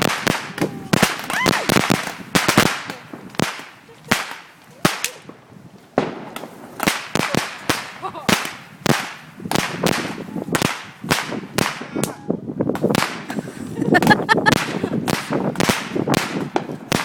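Fireworks or firecrackers going off in a rapid, irregular string of sharp cracks and pops, several a second, with a short lull about five seconds in.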